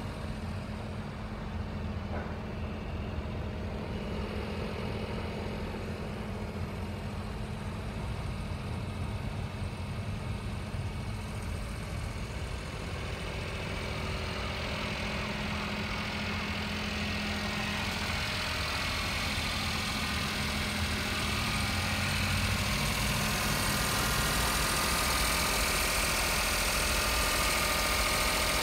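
Daihatsu Hijet kei truck's engine idling steadily. It grows louder, with more high-pitched sound, in the second half.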